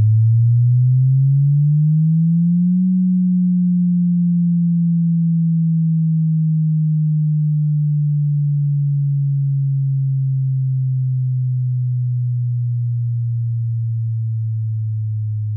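Subwoofer test tone from a sound-system check track: a deep pure sine tone that sweeps up in pitch for about the first three seconds, then glides slowly back down.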